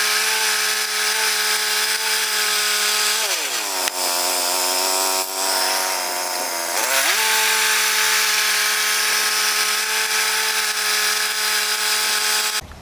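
Portable bandsaw sawmill running, its gas engine holding a steady pitch. About three seconds in the engine pitch sags as the blade takes a heavier load in the cedar log, then recovers about seven seconds in. The sound cuts off abruptly near the end.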